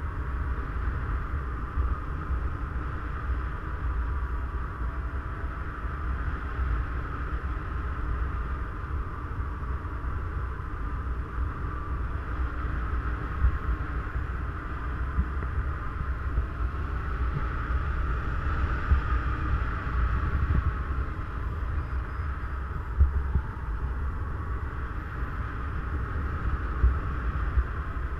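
Airflow rushing over the camera microphone of a paraglider in flight: a steady low buffeting with a hissing band above it that swells and eases about two-thirds of the way through.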